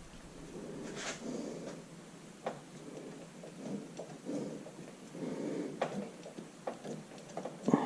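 Hands working the oil seal into the aluminum rear main crankshaft seal retainer: scattered light clicks and knocks with soft rubbing and scraping.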